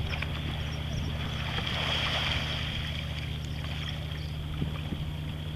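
Sea kayak Eskimo roll: water splashing and swishing as the capsized kayak and paddler come back upright, strongest about two seconds in. A steady low hum runs underneath.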